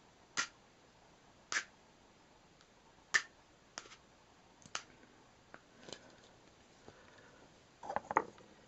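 Several sharp, isolated clicks about a second apart, then a quick cluster of light knocks near the end as hands take hold of the wooden matryoshka doll halves.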